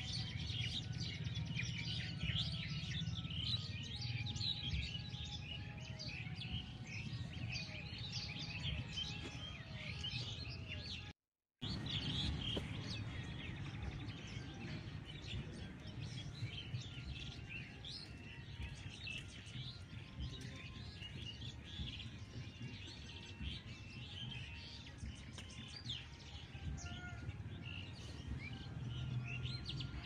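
A dense chorus of many birds chirping and trilling over a low background rumble, with the sound cutting out completely for about half a second roughly eleven seconds in.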